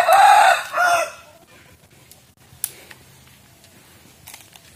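A rooster crowing once at the start, one call of about a second and a half. A single sharp click follows about two and a half seconds in.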